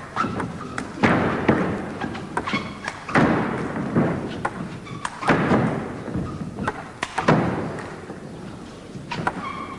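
Table tennis rally: sharp clicks of the celluloid ball off bats and table, with a loud hard hit about every two seconds, each echoing around the big hall.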